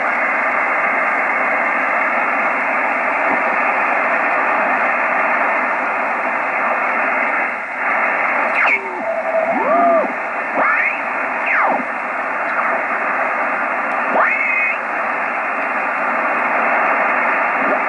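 Yaesu FR-101S shortwave receiver hissing with steady band noise on its speaker. From about eight seconds in, the tuning is moved and signals sweep past as a few short whistles gliding up and down in pitch.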